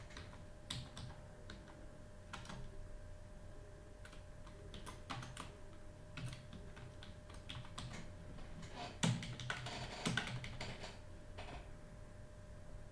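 Typing on a computer keyboard: faint, irregular key clicks, with a louder flurry of keystrokes about two-thirds of the way through.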